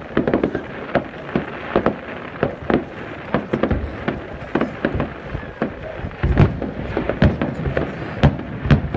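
Aerial firework shells bursting in an irregular run of sharp bangs, about one or two a second, with deeper, heavier booms from about six seconds in.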